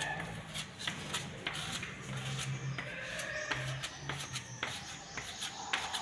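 Metal putty-knife scraper scraping and tapping across a quartz countertop, a run of short, irregular scrapes.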